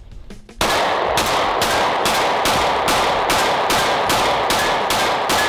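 A micro-compact pistol fired rapidly, about a dozen shots at a little over two a second, starting about half a second in: a magazine dumped at a target.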